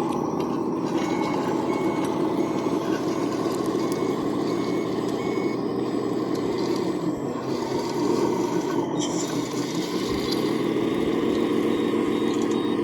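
Remote-control model construction machines running with a steady mechanical drone, and a reversing beeper sounding about six evenly spaced beeps in the first half; a higher-pitched beeping starts near the end.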